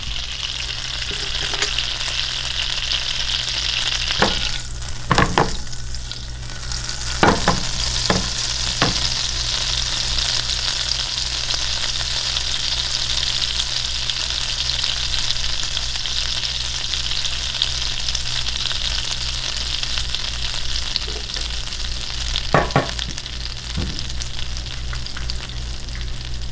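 Butter sizzling steadily in a frying pan as it is browned, still at the foaming stage before it turns brown. A few short knocks sound over the sizzle, the loudest about 5, 7 and 23 seconds in.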